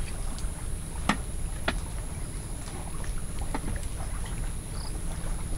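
Knife cutting through a whole roast chicken and hands pulling it apart: a few short, sharp cracks and clicks from the skin and bones, over a steady low rumble.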